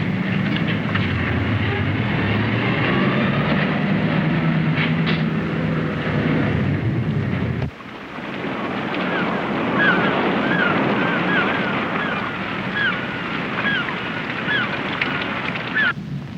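A ship's engine runs with a steady low hum under a noisy haze of wind and water. After about eight seconds it cuts off suddenly to a different noisy scene with many short, high chirps repeating about twice a second.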